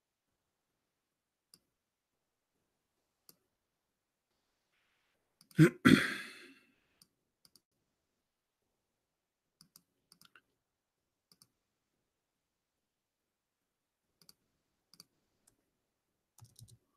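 Faint, scattered clicks at a computer, some single and a quick cluster near the end. About six seconds in comes one much louder, short double sound with a brief tail.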